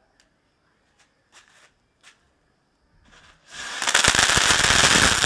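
A few faint clicks, then about three and a half seconds in a firecracker laid on its side catches and fizzes loudly with a dense crackle of sparks. It spins on the ground like a chakri ground spinner instead of burning as meant.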